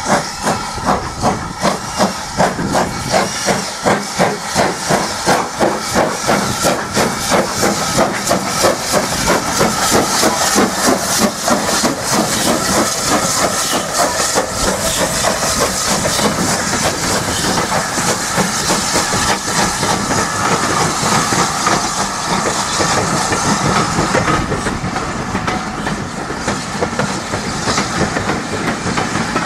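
BR Standard Class 5 4-6-0 steam locomotive 73129, with Caprotti valve gear, working a passenger train past: regular exhaust beats with steam hiss as it approaches and the engine goes by. In the second half the beats give way to the steady noise of the coaches rolling past, their wheels clicking over the rail joints.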